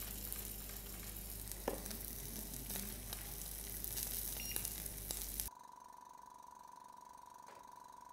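A thin piece of lab-grown beef steak sizzling in hot oil in a frying pan, a steady hiss with scattered crackles and clicks. The sizzle cuts off suddenly about five and a half seconds in, leaving only a faint steady hum.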